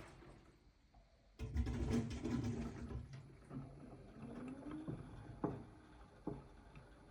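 AEG washing machine running a wash: the drum turns with water sloshing and the motor whines up briefly, then two sharp knocks come about a second apart near the end. The knocking appears as the drum turns slowly and is gone at higher spin speed; its cause is unknown, the detergent drawer having been ruled out.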